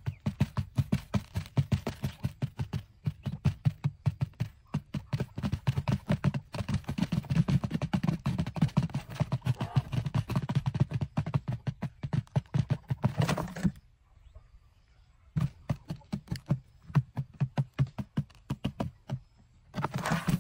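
Quail pecking grain off a grate and concrete, rapid quick taps of their beaks several a second, easing off about two-thirds through. Brief bursts of wing flapping, the last near the end as the birds drop into the pit.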